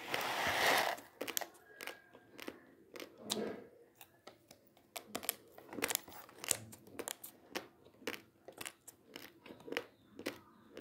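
Dry basmati rice grains crunched between the teeth: a quick, irregular run of sharp crunches. A rustle of the plastic rice packet fills the first second.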